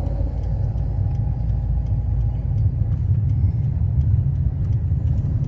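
A car driven slowly, heard from inside the cabin: a steady low engine and road rumble.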